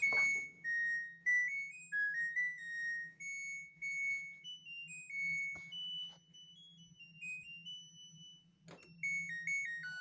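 LG laundry appliance playing its electronic end-of-cycle tune: a run of pure beeped notes stepping up and down, signalling that the cycle has finished. A faint low hum runs underneath, and there are a couple of sharp clicks.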